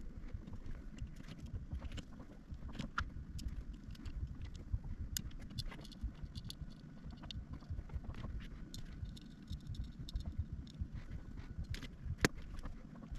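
Light clicks and rattles of small plastic parts being handled and fitted as a Bambu Lab AMS feeder unit is reassembled, over a low rumble of handling noise.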